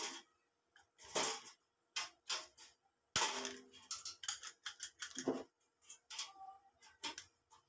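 Irregular metallic clicks and clanks of a hand tool and galvanized sheet metal as the body of a sheet-metal waste-oil stove is worked with pliers. A louder clank with a short metallic ring comes about three seconds in.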